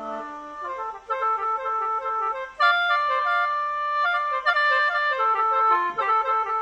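Khaen, the bamboo free-reed mouth organ, playing a melody of short changing notes over held drone notes, several pitches sounding at once.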